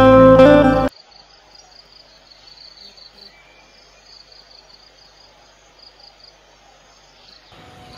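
Guitar music cuts off about a second in, leaving faint insect chirping: a thin, high, pulsing trill, about five pulses a second, until the music comes back near the end.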